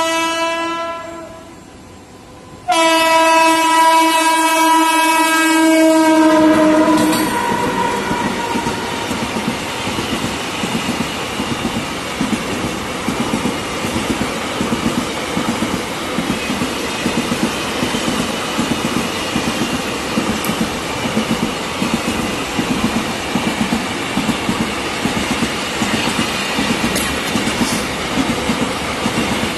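Electric locomotive horn sounding a short blast and then a longer one, the second dropping slightly in pitch as it ends. Then the long double-stack container train rolls past with loud, steady rumbling and a regular clickety-clack of wagon wheels on the rails.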